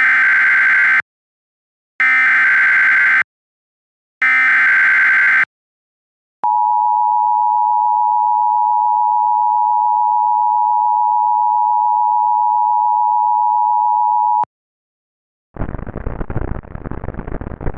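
Emergency Alert System SAME header: three short, identical bursts of warbling data tones, followed by the EAS attention signal, a steady two-tone beep held for about eight seconds, that announces an emergency alert. After it cuts off, a burst of hiss-like noise begins near the end.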